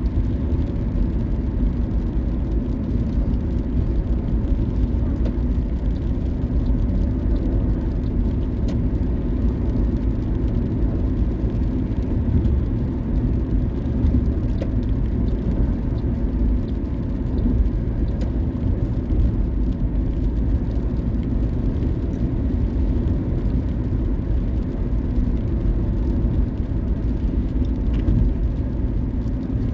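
Car being driven at steady speed: a continuous low rumble of tyres on the road and the engine, with no sudden changes.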